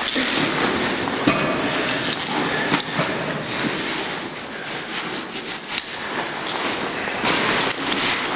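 A caver climbing a rope on mechanical ascenders: a steady rushing noise with scattered sharp clicks and knocks from the climbing gear.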